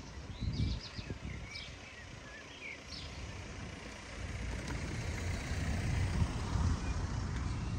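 Outdoor village ambience: a low rumble, such as distant road traffic, that grows louder about halfway through, with a few short high bird chirps in the first three seconds.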